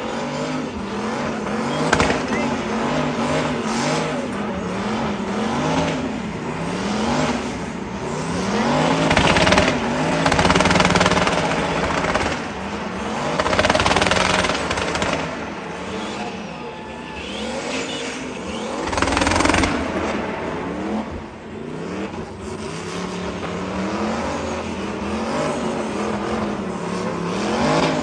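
El Camino's engine being revved up and down over and over during a burnout, its pitch climbing and falling every second or two, over the hiss and screech of the spinning rear tyres.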